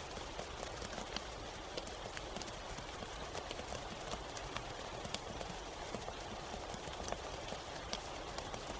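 Steady rain falling, with many irregular, scattered drop ticks on a hard surface over a constant hiss.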